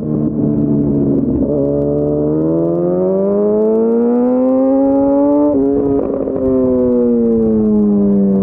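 Yamaha FZ1's inline-four engine running under way, heard from the rider's seat. It climbs steadily in pitch as the bike accelerates, breaks off briefly about five and a half seconds in, then falls in pitch as the bike slows.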